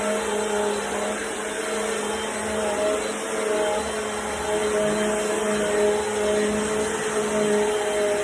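Bissell PowerForce Compact bagless upright vacuum running steadily, its motor giving a constant hum and whine under the rush of air.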